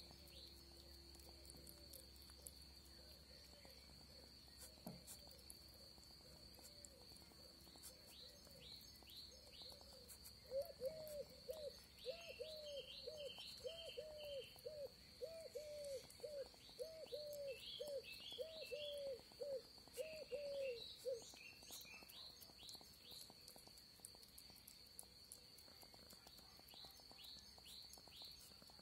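Outdoor birdsong ambience: small birds give short falling chirps over a steady high insect trill. In the middle comes a run of about a dozen low, evenly spaced hooting calls, about one a second.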